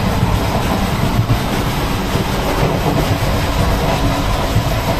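Passenger train coach running on the track, heard from inside: a loud, steady rumble with constant irregular clatter and rattle.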